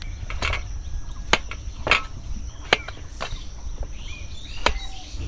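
Kitchen knife slicing a cucumber on a metal platter: sharp, irregular knocks as the blade cuts through and strikes the metal, about six in five seconds. Insects keep up a steady high buzz behind.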